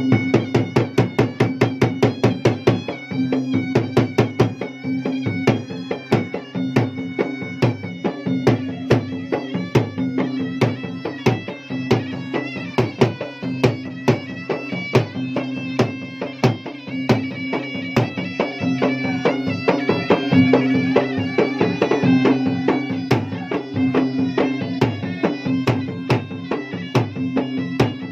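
Traditional Bugis-Makassar gendang (ganrang) ensemble: two double-headed barrel drums beaten with stick and hand in a fast, dense rhythm, under a sustained reedy wind-instrument melody over a steady drone.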